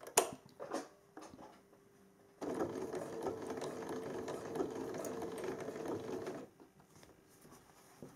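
Domestic electric sewing machine stitching a double hem, running steadily for about four seconds from a couple of seconds in and then stopping. A few sharp clicks come just before, the loudest right at the start.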